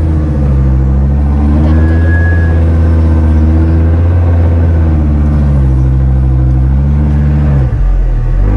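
Off-road 4x4's engine running under load while driving over dirt, pitch sagging and rising with the throttle; near the end the revs drop suddenly, then climb again.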